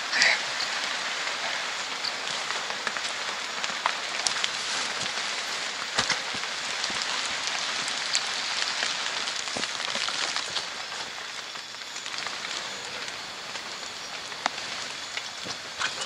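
Rain falling on rainforest foliage: a steady hiss with scattered sharp drips and ticks, easing slightly about two-thirds of the way through.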